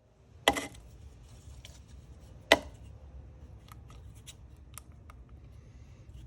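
Two sharp clicks about two seconds apart, then several lighter ticks: small hard tools or objects being picked up and set down on a workbench.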